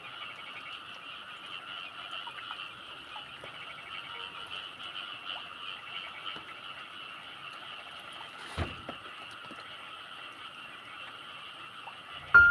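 A steady chorus of frogs calling in the forest, a dense fine trill in two pitch bands, with one sharp knock about two-thirds of the way through.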